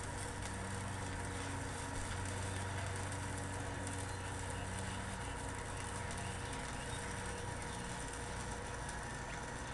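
DC stick (SMAW) welding arc, a steel electrode burning onto a steel breaker bar, giving a steady crackling hiss.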